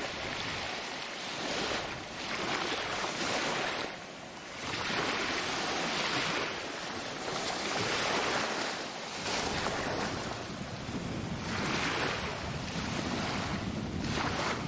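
Small waves washing at the water's edge in surges every couple of seconds, with wind rumbling on the microphone in the second half.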